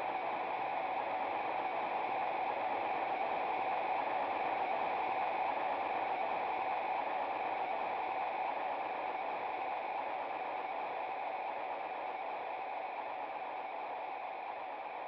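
Steady static-like hiss, strongest in the middle range, easing off slightly near the end.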